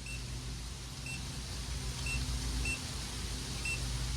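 Turn-signal beeper of a 5TH WHEEL V40PRO electric scooter: short high beeps about once a second while the indicator flashes, the rhythm resetting a little after two seconds in as the signal is switched from one side to the other.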